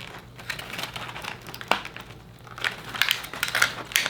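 Stiff plastic doll packaging being handled and pried at, crinkling and crackling with irregular sharp clicks.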